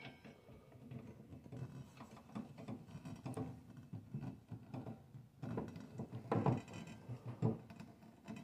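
Faint, irregular metal clicks and rubbing as the arbor nut of a Ryobi 10-inch table saw is spun down by hand onto the arbor against the new blade. There are a couple of louder knocks about six and seven and a half seconds in.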